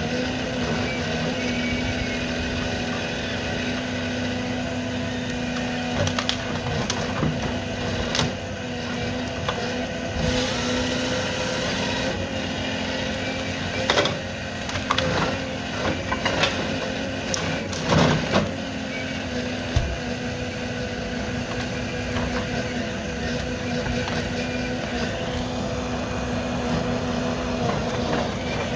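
John Deere 1170G forestry harvester's diesel engine running steadily as it works. Between about six and twenty seconds in, a run of sharp knocks and cracks, loudest twice, as the harvester head grips and handles trees and brush.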